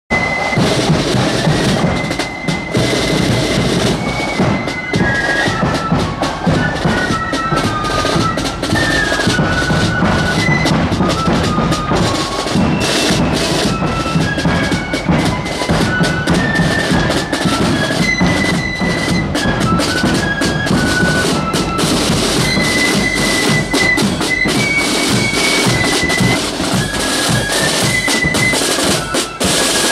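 Marching flute band playing a tune: flutes in unison carry a stepping, high melody over rattling snare drums and a bass drum.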